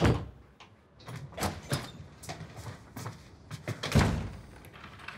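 A door shuts with a heavy thud, followed by scattered light knocks and clicks and a second heavy door thud about four seconds in.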